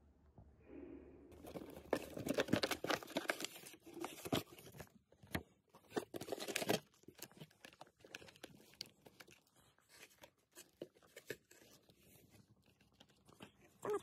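Clear plastic bag and plastic packaging crinkling and rustling as they are handled: dense crackling through the first half, then scattered crackles and taps.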